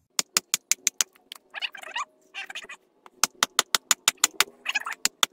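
Wooden baton striking the spine of a fixed-blade survival knife (LW Knives Seeker II) lodged in a spruce log, splitting off a piece: quick, light taps about six a second, in three runs with short pauses between.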